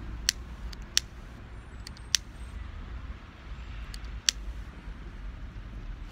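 A cigarette lighter clicking several times as a cigarette is lit, the sharp clicks spaced unevenly over a few seconds, over a low steady rumble.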